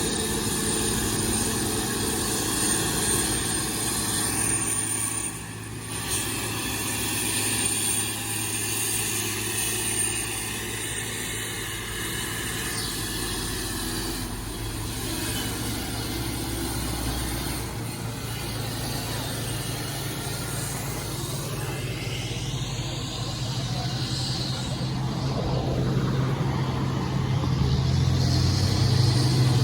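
Heavy truck engine running under load on a steep climb, a steady low drone that grows louder over the last several seconds.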